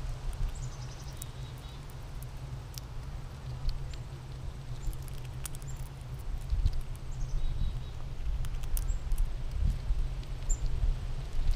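Wind rumbling on the microphone, with scattered sharp clicks from an American red squirrel husking seeds. A few short high bird chirps, one a quick falling run of notes near the start.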